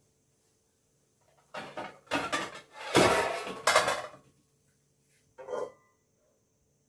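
Cookware clattering for a couple of seconds, loudest in the middle, then a short ringing clank near the end as a lid is set on the frying pan.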